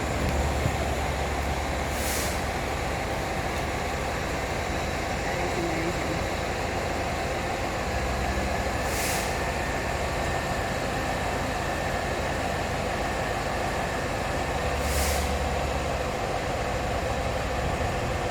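A heavy machine's diesel engine running steadily, with three short hisses of air about six to seven seconds apart, each with a brief swell in the low engine rumble.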